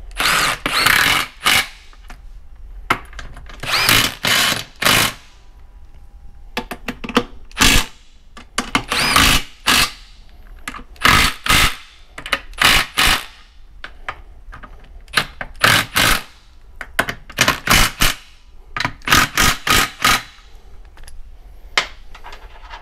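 Cordless impact driver running in a long series of short bursts, driving and snugging the bolts on a transfer case's split case halves in a crisscross pattern.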